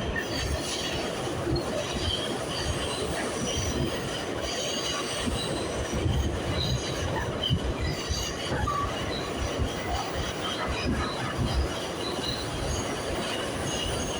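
Subway train running on the rails: a steady rumble of the cars with short, high wheel squeals coming and going.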